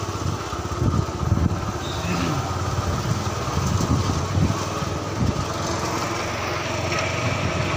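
Small motorbike engine running at low speed, a steady low hum.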